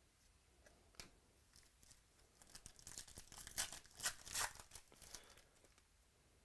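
Thin plastic crinkling and tearing as trading cards are unwrapped and handled. A single click comes about a second in, then a run of crackles from about two and a half to five seconds in.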